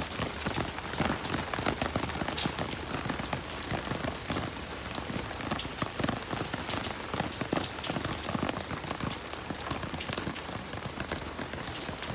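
Steady rain falling, with many separate drops pattering and splashing close by over the hiss of the downpour.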